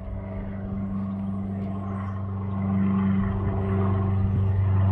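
A steady, low engine drone with a constant pitch, growing louder over the seconds.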